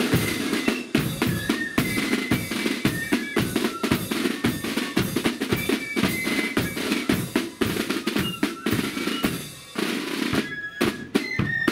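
Marching band's snare drums and bass drum playing a quick march beat with rolls; the drumming thins briefly near the end, then picks up again with a roll.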